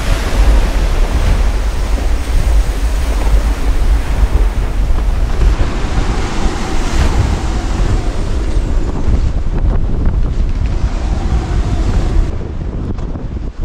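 Gale-force wind buffeting the microphone over the rush of breaking following seas around a sailing yacht, a loud, steady roar heavy in the low end. It eases a little about a second before the end.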